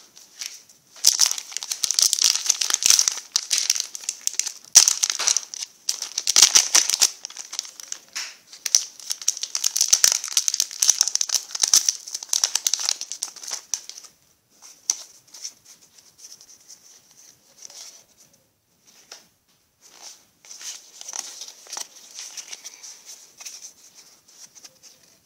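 Foil wrapper of a Pokémon trading card booster pack crinkling and tearing as it is handled and ripped open. The crinkling is dense and loud through roughly the first half, then turns into softer, scattered rustles.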